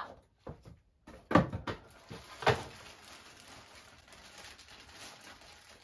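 Packaging being handled: a few short sharp crinkles and knocks as a clear plastic bag of balloons is lifted from its torn mailer, then faint rustling of the plastic.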